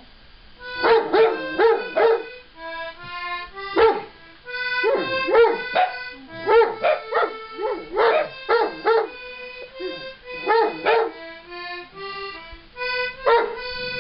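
A giant schnauzer barking in repeated bursts at a musical instrument being played, whose held notes sound underneath the barks.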